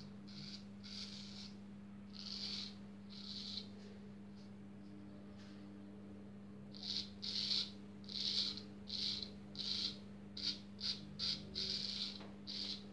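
Freshly honed straight razor scraping through lathered stubble in short strokes: a few spaced strokes, a pause, then about a dozen quick strokes in a row from about halfway through, the edge cutting the hair as it tests the honing.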